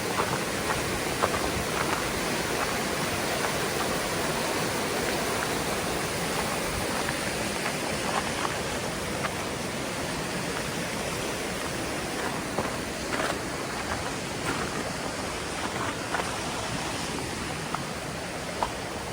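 Waterfall's rushing water, a steady even hiss with a few small ticks scattered through it.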